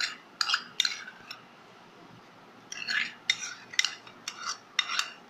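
Steel spoon scraping and clinking against a bowl in short strokes as mayonnaise is scooped out onto shredded chicken: a few strokes, a pause of about a second, then a quicker run of strokes.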